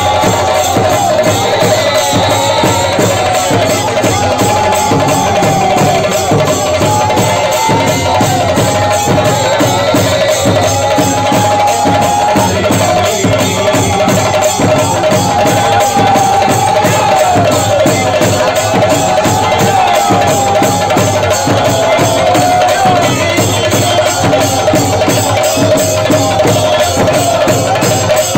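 Loud procession music: fast, steady drumming with a wavering melody line held above it.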